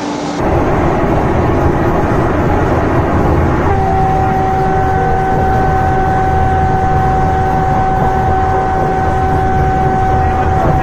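Cab of the Train 18 (Vande Bharat) electric trainset running at about 180 km/h: a steady rumble of running noise. From about four seconds in, a steady high tone is held over it until near the end.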